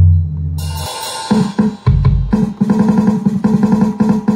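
Drum-kit sounds in FL Studio played from the pads of a Kadence 25-key MIDI controller. A deep, loud low hit opens, a high cymbal-like wash comes in just after, and then a fast run of drum hits follows at about five a second.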